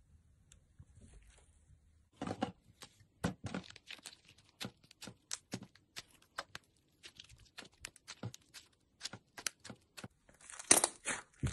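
Slime being squeezed and worked by hand, giving off crisp, irregular pops and clicks, a few a second, starting about two seconds in, with a denser crackle near the end.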